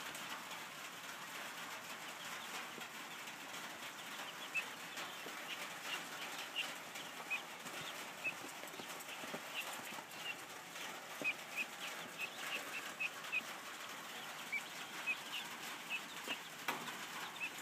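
Young chicks peeping: many short, high peeps, scattered irregularly and coming more often after the first few seconds, over a steady hiss.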